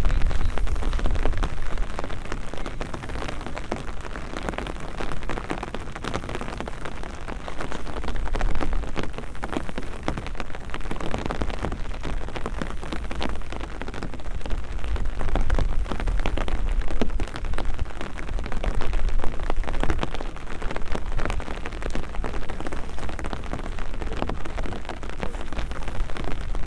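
Steady rainfall, a dense patter of many drops, recorded close on binaural microphones, with a low rumble underneath.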